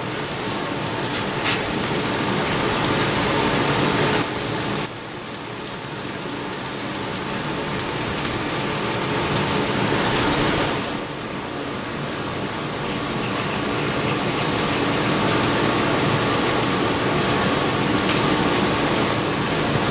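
Bone-in pork chops sizzling on a hot griddle top: a steady frying hiss. The hiss drops back suddenly about five seconds in and again about eleven seconds in, then builds up again each time.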